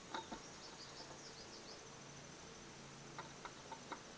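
Quiet outdoor background: a steady high insect drone, with faint bird chirps in the first couple of seconds and a few light clicks scattered through.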